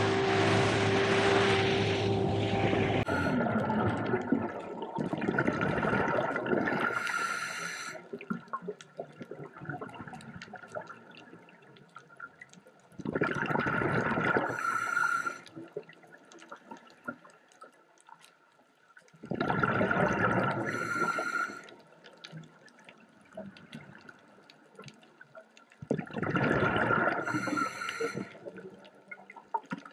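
A boat's motor running with rushing wind and water for about three seconds, then cut off. After that, a scuba diver's exhaled breath bubbles out of the regulator underwater in gurgling rushes of two to three seconds, four times, about every six or seven seconds, with quiet in between.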